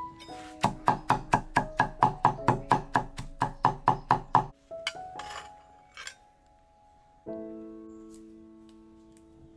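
Cleaver chopping softened dried red chilies on a wooden chopping board: a fast, even run of about twenty strokes, about five a second, that stops about halfway through. Background piano music plays throughout.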